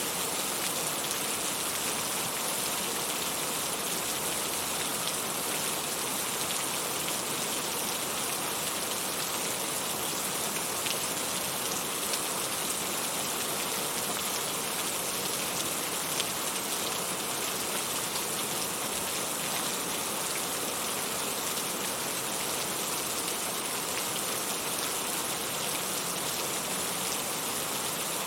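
Steady heavy rain falling on surfaces, a dense even hiss with many small drop hits.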